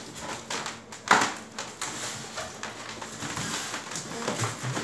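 Handling noises from packing styrofoam boxes: scattered small clicks and rustling, with one sharp knock about a second in.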